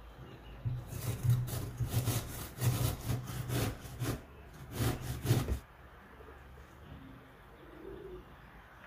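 Zucchini being grated on a stainless-steel tower grater on a wooden cutting board: a run of quick rasping strokes, each with a dull low knock, lasting about five seconds and then stopping.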